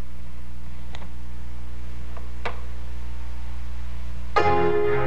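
A steady low electrical hum with two faint clicks about a second and a half apart. Near the end, an electronic musical chord sounds: the start of the data music.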